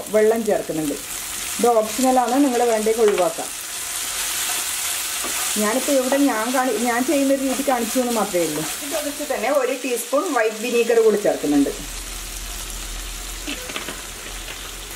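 Chopped vegetables and scrambled egg sizzling in a nonstick wok while a wooden spatula stirs them around the pan.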